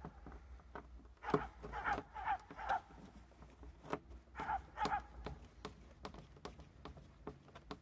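Hand screwdriver driving screws into a snowmobile's plastic body panel: scattered light clicks and taps of the tool and screw on plastic, the sharpest about a second and a half in. A few short chirping calls come in from time to time behind them.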